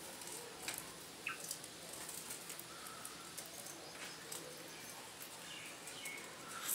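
A caged black francolin giving a few faint, short soft chirps, with scattered small clicks and a brief rustle near the end.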